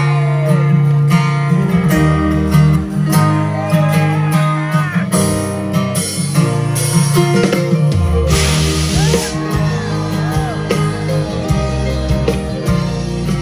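Live band playing a song: acoustic guitar strumming over bass and drums, with a man singing. A cymbal crash rings out about eight seconds in.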